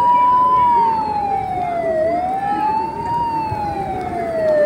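Siren wailing, its pitch rising and falling slowly about every two and a half seconds.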